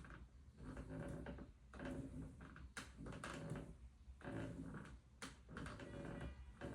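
IKEA bunk bed creaking in repeated surges about once a second, with a few sharp clicks, as weight shifts on it. The noise comes from the bed's slatted base, which a repairman pinpointed and which still creaks after being replaced.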